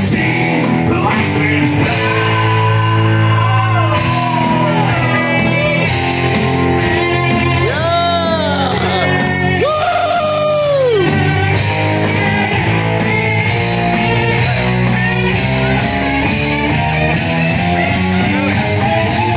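Hard rock karaoke backing track with electric guitars playing loud through a bar PA, with a man singing along into a microphone; a few swooping notes about eight to eleven seconds in.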